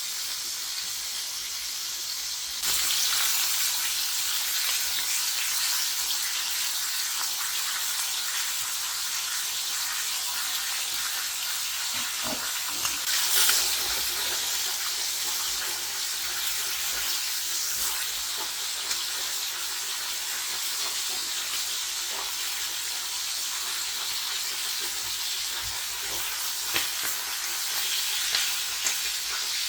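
Food frying in hot oil in a pan: a steady sizzle that gets louder about three seconds in, with a brief louder swell around halfway and a few light clicks near the end.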